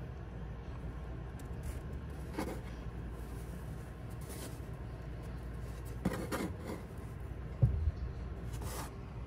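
Soft rubbing and scuffing of a hand playing with a kitten on a wooden shelf, with a few brief scratchy rustles and one dull bump late on, over a steady low hum.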